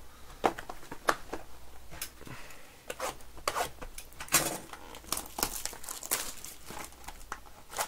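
Plastic trading-card packaging crinkling and tearing as a card box is opened and cards are pulled out, with irregular sharp crackles.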